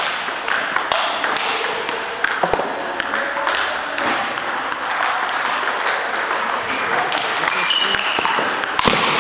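Celluloid table tennis ball being struck by bats and bouncing on the table during doubles rallies: quick, irregular clicks.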